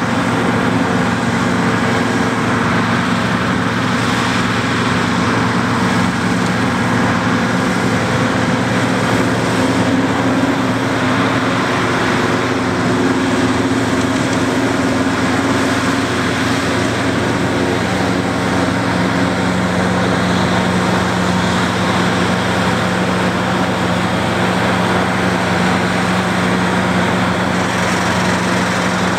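White 195 Workhorse tractor's diesel engine pulling steadily under load, over the whir of the PTO-driven New Holland FP230 forage harvester chopping alfalfa and blowing it into the wagon. The machine din is unbroken; the engine note shifts slightly about two-thirds of the way through.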